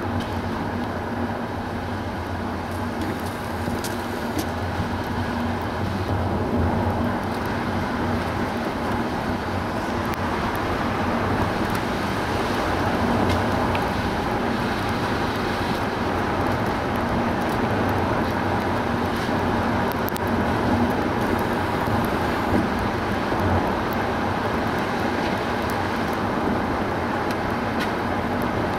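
Steady road noise of a car driving along: tyre rumble with a low, even engine hum.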